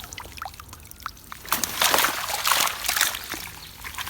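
Water sloshing and splashing in irregular bursts that get louder about a second and a half in, with trickling drips, as the day's catch of fish is brought up out of the canal water.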